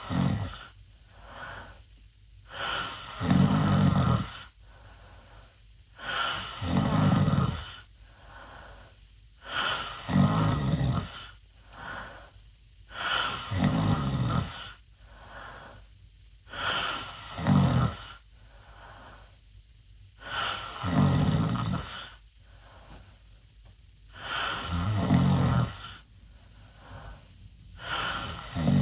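A teenage boy snoring loudly through an open mouth: a loud snore about every three and a half seconds, with quieter breaths in between.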